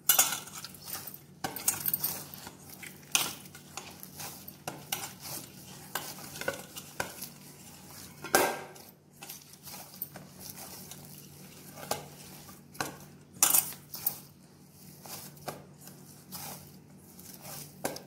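Dough being kneaded by hand in a stainless steel bowl: irregular knocks, clatters and scrapes of the steel bowl as the dough is pressed and turned in it, with a few louder knocks.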